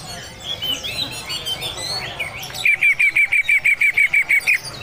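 Greater green leafbird singing: varied chirps and slurred whistles. About two and a half seconds in, it breaks into a loud, fast run of about a dozen repeated notes, some six a second, which stops shortly before the end.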